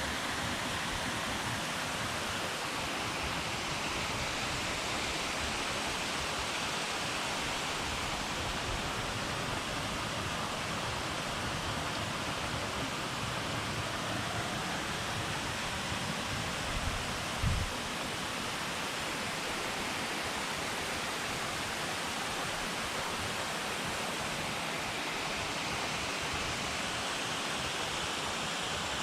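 Waterfall's steady rush of falling water, an even noise with no breaks. A brief low thump sounds about two-thirds of the way through.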